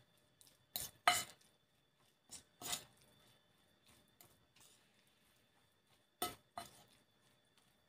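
Metal spoon stirring a mashed tofu and flour mixture in a ceramic bowl, with soft scraping and a few sharp clinks of spoon on bowl, the clearest around a second in and twice just past six seconds.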